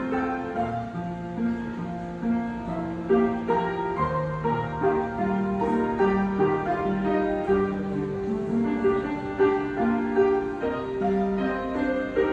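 Piano playing a slow melody over held chords, with no singing.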